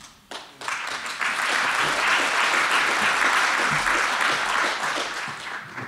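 Audience applauding, swelling over the first couple of seconds and tapering off near the end.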